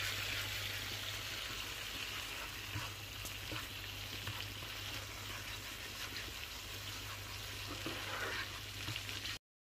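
Tomato and garlic sauce sizzling steadily in a frying pan as its added water cooks off, with a few light clicks from stirring. It cuts off suddenly near the end.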